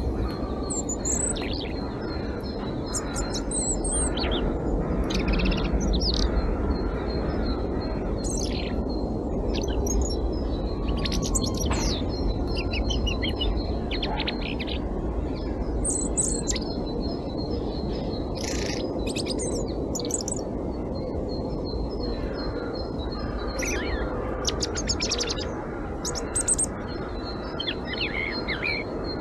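European robin singing: short, high, thin warbling phrases, each a second or two long, separated by brief pauses, over a steady low background rumble.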